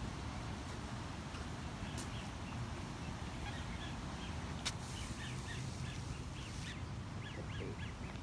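Ducks calling with short, high chirps, repeated in a quick run from about three seconds in, over a steady low rumble, with a couple of sharp clicks.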